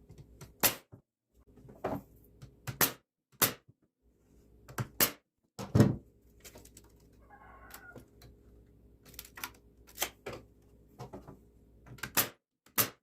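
A series of sharp, irregularly spaced knocks and clicks, some in quick pairs, from the brace boards of a cedar shutter being fastened on. A faint steady hum runs underneath.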